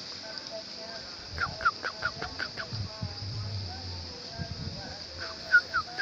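Yellow-vented bulbul calling: runs of short, quick, downward-slurred notes, about a second and a half in and again near the end, over a steady high hiss.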